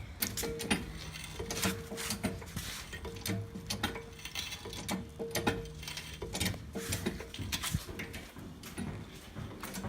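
Trolley jack being worked: irregular metallic clicks and clanks, several a second, with a faint on-and-off tone underneath.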